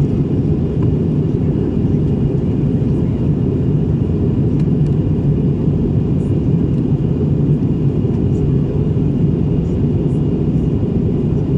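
Steady cabin noise inside an Airbus A321neo in flight: the drone of its Pratt & Whitney geared turbofan engines and the rush of air over the fuselage, a deep, even rumble that does not change.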